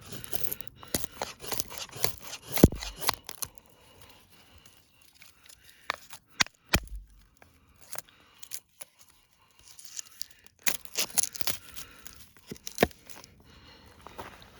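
Large fixed-blade knife working wood, with cutting, cracking and tearing of wood fibres in three bursts. There are two dull thumps, one near the end of the first burst and one in the second.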